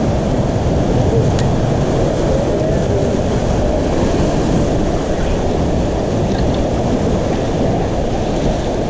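Ocean surf washing and surging against a rock ledge, mixed with wind rumbling on the microphone: a steady, loud rush with no break.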